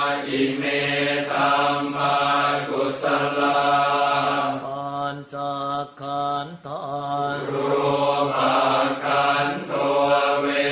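Thai Buddhist funeral chant: monks chanting together on one low, steady pitch. There are a few brief breaks about halfway through.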